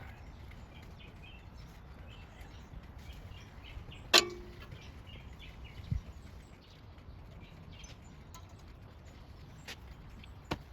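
Small birds chirping faintly in the background. A single sharp click about four seconds in, a low knock a couple of seconds later, and another click near the end.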